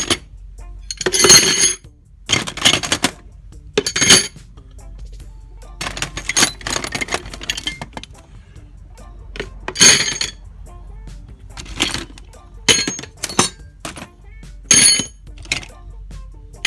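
Solid brass door handles and lock parts clinking and clattering as they are picked up and set down on a metal bench and scale: a string of about a dozen sharp metallic knocks at uneven spacing, several ringing briefly.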